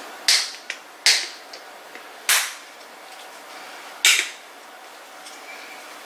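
Black pepper grinder twisted by hand, four short grinding bursts at uneven spacing as peppercorns are ground over meat.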